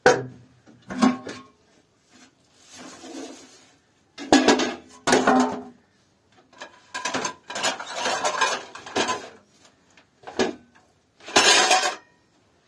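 Dishes and metal utensils clattering and knocking together in a run of irregular bursts, some with a brief ringing.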